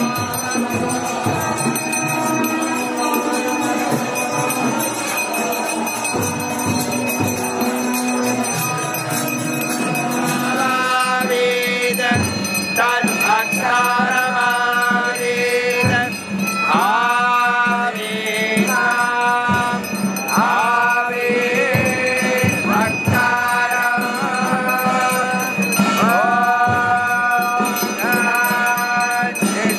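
Kirtan: a crowd of devotees chanting and singing together, with jingling hand cymbals keeping the beat. About a third of the way in, the singing voices come through more clearly.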